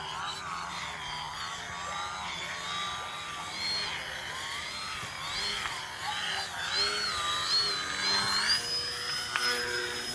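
Electric motor and propeller of a DW Foamies Juka 40-inch foam aerobatic RC plane whining in flight, its pitch rising and falling over and over. Near the end the whine settles into a steady higher tone.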